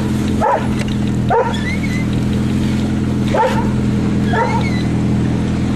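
A dog barking in short yips about once a second over the steady drone of an idling engine.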